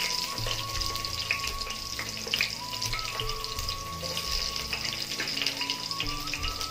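Sliced onions sizzling in hot oil with mustard seeds: a steady frying hiss with scattered small crackles and pops, the onion stage of a South Indian tempering. A soft background melody plays underneath.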